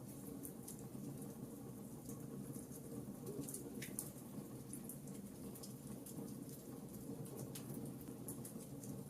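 Fireplace fire crackling: a steady low rush of burning with many small, irregular pops, and one sharper pop about four seconds in.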